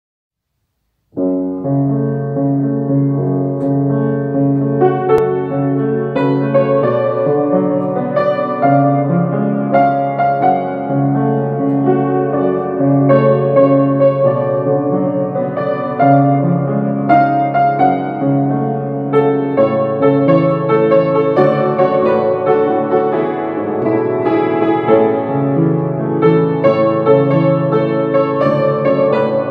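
Piano music: a melody over held chords, starting about a second in.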